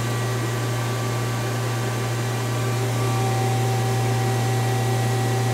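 Powered-up Mazak CNC lathe standing idle, giving a steady machine hum with several fixed tones and a hiss, unchanging throughout.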